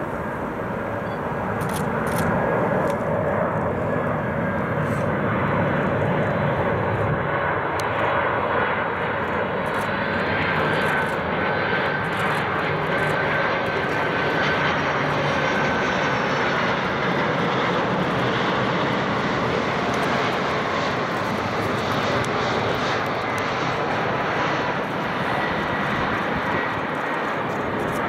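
Boeing 747-400's four jet engines on final approach: a steady rumble and hiss with a high whine that shifts in pitch about halfway through as the airliner passes.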